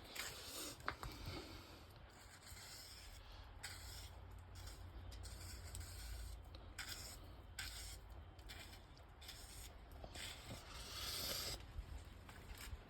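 Writing in fresh snow: a series of short, faint scraping strokes as something is dragged through the snow, the longest near the end.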